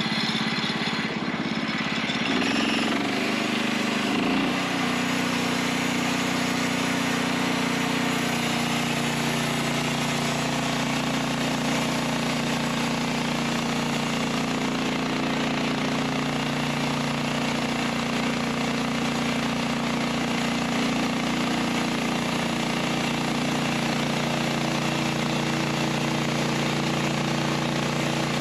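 Norwood LumberMate portable bandsaw mill's Kohler gas engine running under load as the band blade saws through a poplar log, throwing sawdust. The engine note shifts in the first few seconds, then holds steady through the cut.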